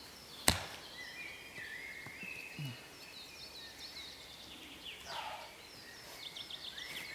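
Songbirds singing in woodland, repeated high chirping and warbling phrases, with one sharp click about half a second in.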